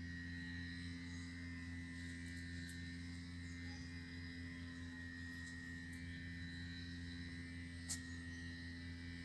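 Steady electrical or mechanical hum, even and unchanging, with a single short click about eight seconds in.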